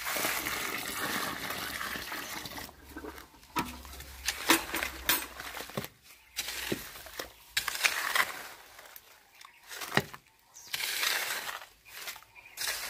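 Water pouring from a bucket onto loose soil for the first few seconds, then a spade scraping and chopping at the damp earth in repeated, irregular strokes as an earthing pit around its pipe is backfilled.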